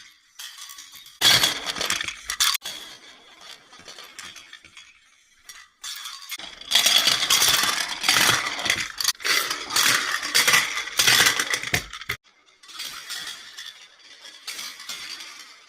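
Small toy cars clattering and clicking as they roll down a ramp racing track, in bursts: a short run about a second in, a longer, louder run from about seven to twelve seconds, then fainter rattling.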